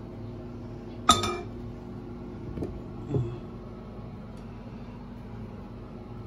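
Dishware clinking: one sharp, ringing clink about a second in, then two softer knocks a second and a half and two seconds later, over a steady low hum.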